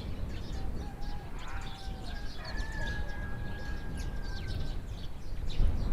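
A rooster crowing once, one long drawn-out call, over small birds chirping and a steady low rumble.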